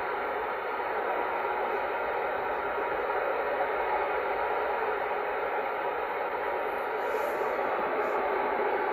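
Stryker SR-955HP radio's speaker hissing with steady band static while it listens between transmissions.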